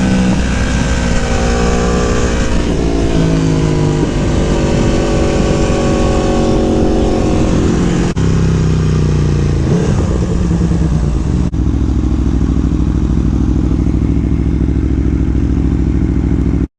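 Aprilia Tuono V4 1100's V4 engine under load on track, heard from the rider's helmet with wind rush. The engine pitch rises and falls, with brief cuts about eight and eleven seconds in as gears change. It then holds steady until it cuts off suddenly.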